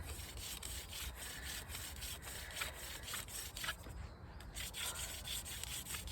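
Wooden hand-drill spindle spun back and forth between the palms on a wooden hearth board: a dry wood-on-wood rubbing in quick, even strokes as the friction fire set grinds out hot dust.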